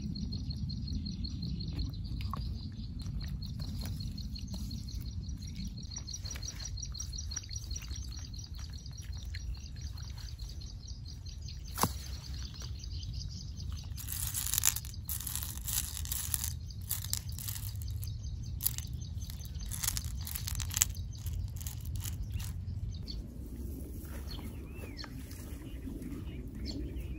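Outdoor ambience: birds chirping, with a high rapid trill through the first ten seconds, over a low steady rumble. Around the middle come rustling and a few sharp clicks as freshwater mussel shells are handled.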